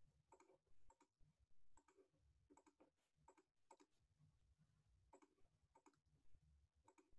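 Faint computer mouse clicks and key taps, many in quick pairs, coming irregularly about once a second against near silence.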